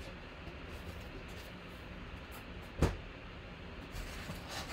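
A cardboard box being lifted off a stack of boxes: one sharp knock about three seconds in, over a low steady hiss.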